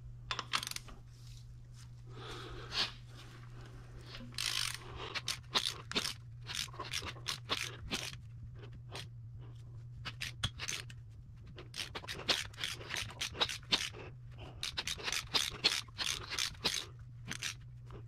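Handling noise: quick scrapes, clicks and rustles of gloved hands working on an engine's timing chain and sprockets, over a steady low hum.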